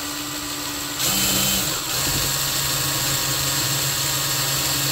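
Cordless drill running steadily as a Spyder drill bit bores through extremely hard steel. About a second in the drill gets louder and its motor note drops lower, then holds steady.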